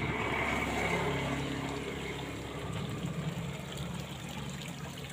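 Water pouring steadily from a small inflow into a pond, over a low steady hum.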